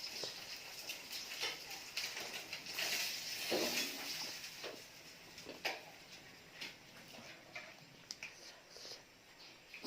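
Close-miked eating sounds: chewing and mouth smacks with scattered short clicks, and a brief noisier stretch about three seconds in.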